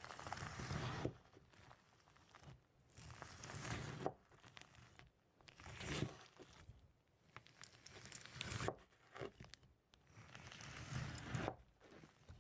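Quiet crinkling, crackling noise that comes in repeated swells, each building up over about a second and then stopping abruptly.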